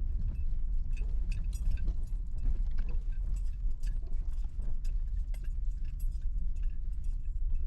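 Toyota 4Runner rolling slowly over a rough dirt road, heard from inside the cabin: a steady low rumble with irregular crunching clicks and rattles from the tyres and loose gear.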